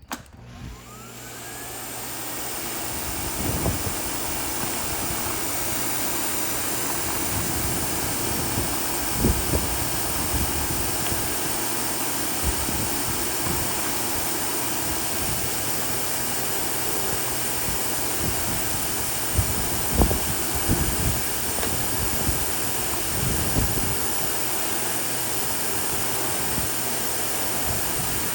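Vacuum cleaner switched on, its motor rising to speed over about two seconds, then running steadily as it is used on a sidewalk, with occasional low knocks.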